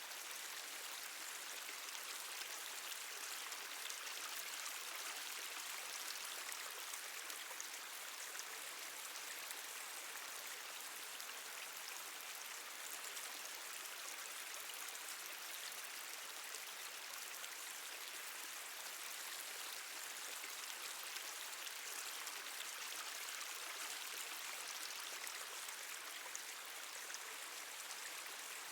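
Water dripping and trickling steadily, a dense patter of many small drops over a continuous hiss of running water.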